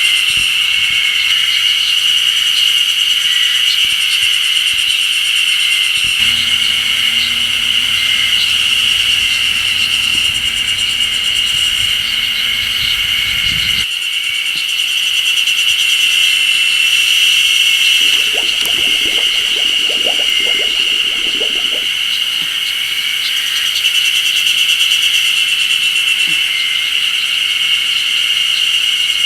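A loud, steady chorus of many cicadas calling together, a dense high-pitched drone that does not break.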